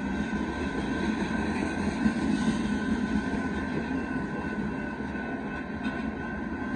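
Loaded rock cars of a Union Pacific freight train rolling past at a grade crossing: a steady rumble and rattle of steel wheels on rail, with a steady high tone running through it.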